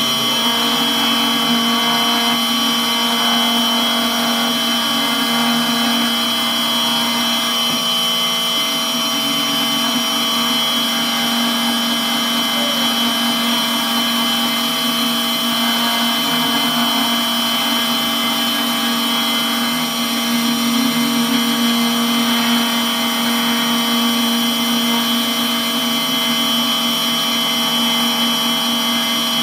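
FABtotum personal fabricator's milling spindle running at a steady speed while a 0.1 mm engraving bit mills isolation traces into a copper-clad PCB. It makes a constant whine with several held tones.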